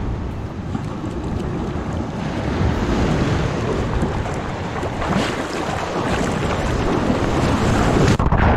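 Small surf breaking and washing around a kayak's hull as it comes in to the beach, with wind buffeting the microphone. The wash grows louder and foamier toward the end, then turns suddenly muffled just before the end.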